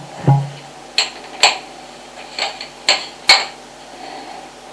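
Sharp knocks and clinks, about six at irregular intervals, picked up through a home-made hydrophone with a faint steady hum beneath them.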